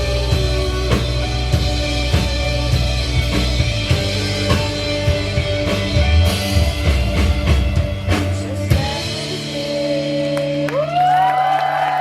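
Live rock band playing the end of a song: drum kit, bass and guitar with a steady beat until the drums and bass stop about three quarters of the way in, leaving a held chord. Near the end, cheering and whoops from the audience begin as the song finishes.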